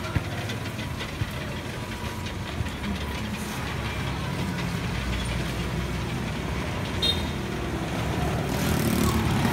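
Steady low rumble of motor traffic, swelling near the end as a vehicle comes closer, with a few light clicks and a brief high beep about seven seconds in.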